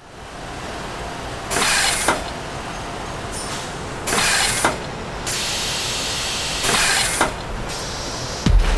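Three short bursts of hissing, each ending in a sharp click, over a steady background hiss.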